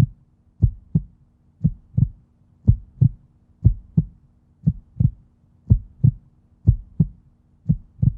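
Heartbeat sound effect: paired low thumps, lub-dub, about one beat a second, over a faint steady hum.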